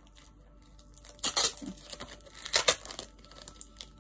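Crinkling of plastic packaging as merchandise is handled and unwrapped, with two louder rustling bursts, about a second in and again at about two and a half seconds.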